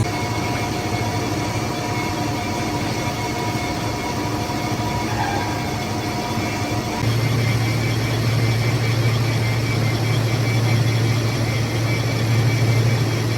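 Metalworking lathe running steadily while turning a bronze bush, a continuous mechanical hum and noise. A deeper hum is missing at first and comes back about halfway through.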